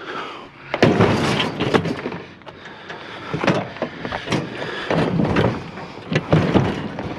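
Heavy scrap being dragged and shoved onto a trailer: a stretch of scraping about a second in, then a series of clunks and knocks.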